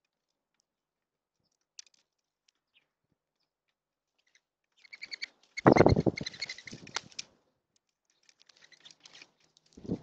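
Mourning dove's wings flapping hard with a whistling twitter as it flutters at a bird feeder, a loud two-second burst about five seconds in. Faint ticks and rustles before and after, and another flutter begins right at the end.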